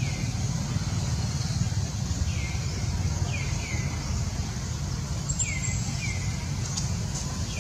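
Outdoor ambience with a steady low rumble and a steady high hiss. Short, high-pitched, falling chirp-like calls come singly and in pairs, about eight times.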